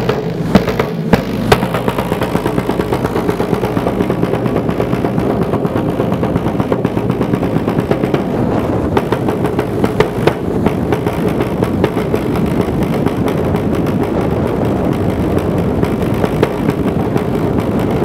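Wayuu kasha, a rope-laced wooden drum, beaten with two sticks: a few loud separate strokes in the first second or so, then a fast, steady roll of drumbeats.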